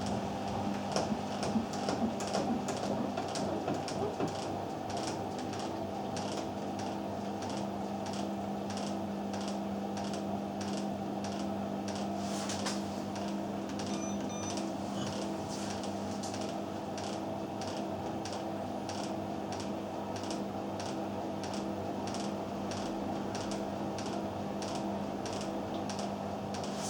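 Hoover VHD 816 washing machine running its drum with a steady motor hum and a regular tick about twice a second, uneven and louder over the first few seconds; the sound of the machine coping with an unbalanced load.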